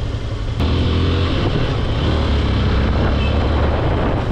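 Motorcycle engine running while riding, with wind and road noise. The sound gets suddenly louder about half a second in and then holds steady.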